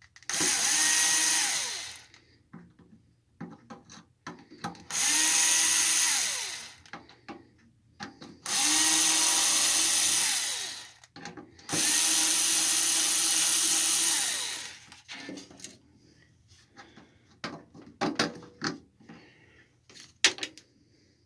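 Cordless power drill/driver backing out the four screws that hold a plate on the welder, in four separate runs of about two to three seconds. Each run spins up, holds a steady whine and winds down. Light clicks and handling knocks of the screws and parts follow in the last few seconds.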